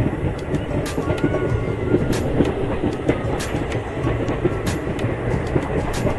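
Passenger train running along the track, heard from aboard: a steady wheel-on-rail rumble with scattered clicks and rattles.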